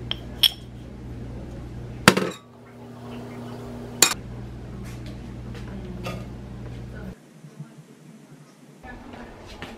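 Sharp clinks and knocks of a glass jar and a stainless steel frying pan being handled on a stovetop. The loudest comes about two seconds in and another about four seconds in, over a steady hum that stops suddenly about seven seconds in.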